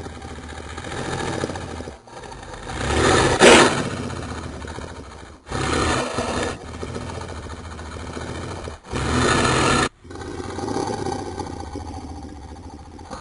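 Dinosaur sound effects for Acrocanthosaurus: a string of separate roars and growls with abrupt cuts between them. The loudest roar peaks about three and a half seconds in, two shorter loud roars follow, and a lower, longer growl closes the sequence.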